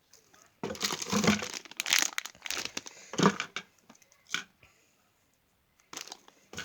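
Crinkling, rustling handling noise as squishy toys are picked up and squeezed. It comes in dense clusters for about three seconds starting a little way in, then a short burst near the end.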